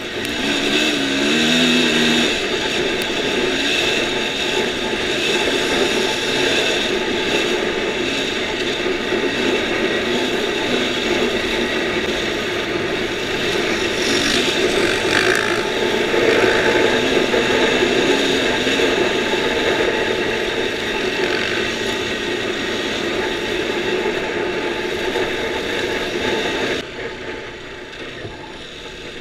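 Dirt bike engine running hard under throttle over a sandy track, mixed with heavy wind rush on the bike-mounted microphone. The engine pitch climbs in steps a second or two in, and the overall level drops suddenly near the end.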